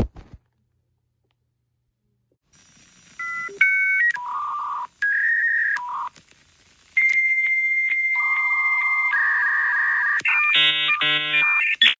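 A thump, then after a pause a loud run of electronic beeping tones that jump between a few pitches, some held for a second or two, turning buzzier and harsher near the end.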